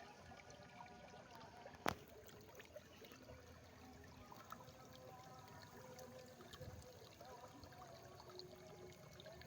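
Faint trickle of water flowing through a rice field, with short gurgling tones over a soft hiss. One sharp click about two seconds in.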